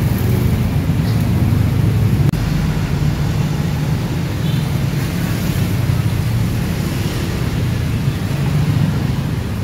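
A steady low motor hum with a rumble of engine noise that holds evenly throughout.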